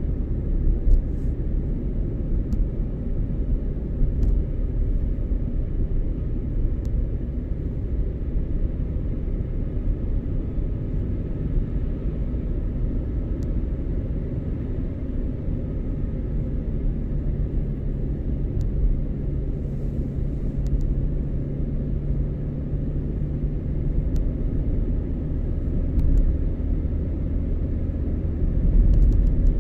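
A car driving: a steady, low road-and-engine rumble with a faint hum running under it.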